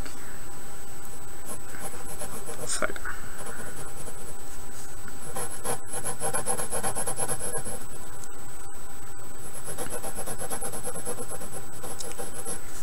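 Pencil scratching on paper as lines are drawn over and thickened, in two longer spells of strokes, about halfway through and near the end.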